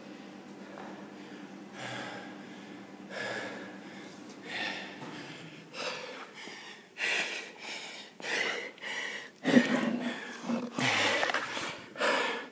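A man breathing hard and gasping, out of breath after a hard workout, the breaths getting louder and coming every second or so. There is one sharp thump about three quarters of the way through.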